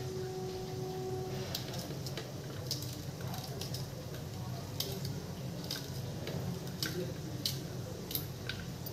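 Small knife slicing green chillies on a steel plate: irregular sharp clicks, about one or two a second, as the blade cuts through and taps the plate, over a steady low hum.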